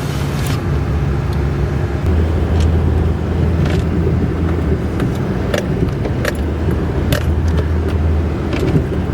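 A vehicle engine running steadily under load, with scattered light clicks and rattles. The engine note gets stronger about two seconds in and eases back near the end.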